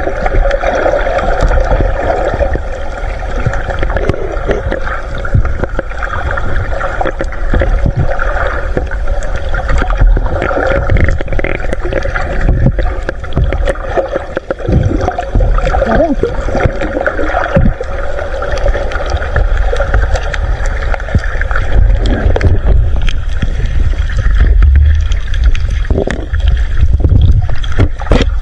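Muffled underwater noise recorded by a camera submerged in the net: a constant low rumble and gurgling water with scattered crackles, and a faint steady hum through it.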